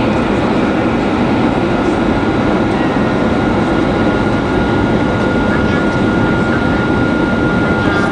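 Steady cabin noise of an Airbus A320 in flight: an even rush of airflow and jet engine noise heard from a passenger seat, with a thin high whine held throughout.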